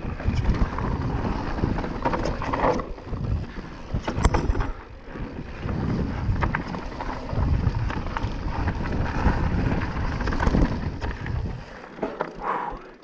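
Mountain bike ridden fast down a dirt forest trail: tyres and frame rattling and knocking over bumps, with wind buffeting the microphone. It gets quieter near the end.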